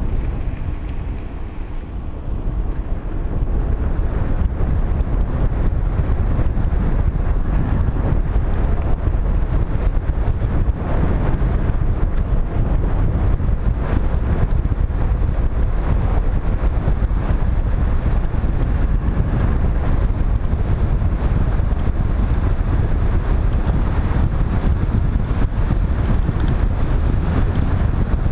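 Wind buffeting a microphone on a bicycle coasting downhill at speed: a loud, steady, low rumble that eases off briefly a second or two in, then returns.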